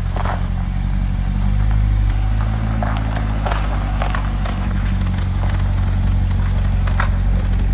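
An engine idling steadily, with a few light clicks over it.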